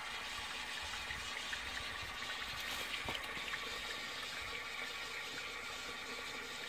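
1930s F. Beale & Sons 'Burlington' cast-iron high-level toilet cistern refilling after a flush: a steady rush and hiss of water coming in through its high-pressure float valve.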